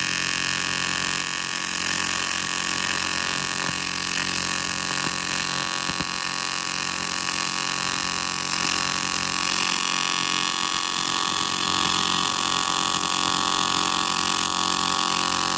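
AC TIG welding arc on cast aluminum from an HTP Invertig 251, a steady buzz held unbroken while filler is added to build up the casting. It stops abruptly shortly after the end.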